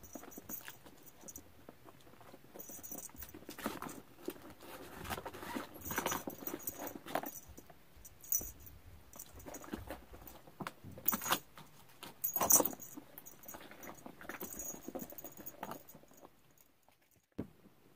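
Ferrets scuffling and wrestling over loose fleece strips: irregular soft thumps and rustles, with a small bell jingling on and off. The activity dies down near the end.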